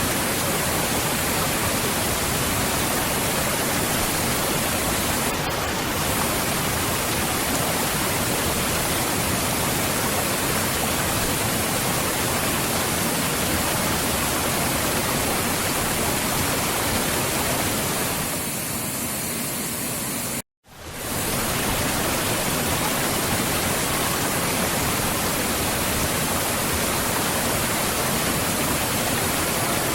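Waterfall: a steady, even rush of falling water. It breaks off into a moment of silence about two-thirds of the way through, then resumes.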